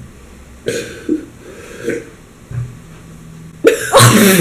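A thick milkshake being drunk straight from a paper cup, with a few faint, short swallowing sounds. Near the end comes a sudden loud vocal outburst from the drinker.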